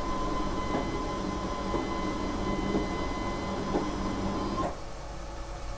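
Stepper motor of a mower unit's cutting-height adjuster running steadily with a whine, with a faint tick about once a second, as it drives the cutting knife to a 20 mm height; it stops abruptly near the end.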